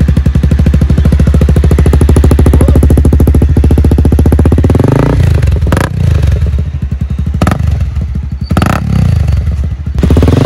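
Honda CBR250R single-cylinder engine breathing through an aftermarket Akrapovic-style slip-on muffler, idling with an even, fast-pulsing exhaust note. About halfway through it is revved up and down several times.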